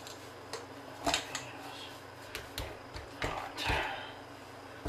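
Hands working a cold ground-meat meatball mixture in a mixing bowl: irregular squishes, clicks and a few dull knocks against the bowl, the heaviest about a second in and again past the three-second mark.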